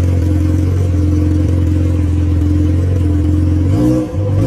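Yamaha XJ6's inline-four engine idling steadily through a straight exhaust pipe with no muffler, a loud low drone. Near the end the throttle is blipped once, a short rise in pitch.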